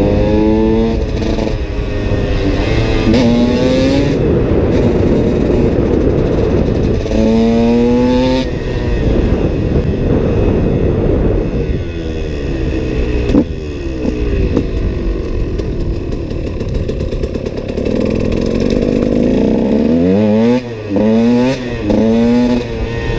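A KTM SX 125's two-stroke single-cylinder engine under way, revving up through rising pitch sweeps several times. There is a single sharp knock about halfway, and near the end three quick revs in a row, each cut off before the next.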